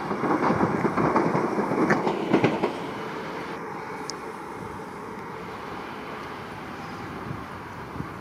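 Electric train running on the track: loud rumble with wheel clatter for the first two to three seconds, then a quieter steady rumble.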